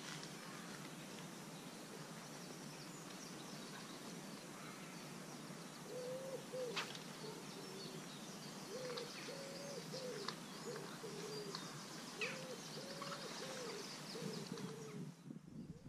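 Pigeon cooing in repeated phrases of low hooting notes, starting about six seconds in, over steady outdoor ambience with faint small-bird chirps.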